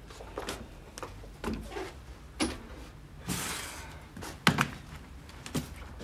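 A room door being handled as people come in, heard as a series of clicks and knocks from the door, footsteps and luggage. There is a brief rush of noise a little after three seconds, and the loudest sharp knock comes at about four and a half seconds.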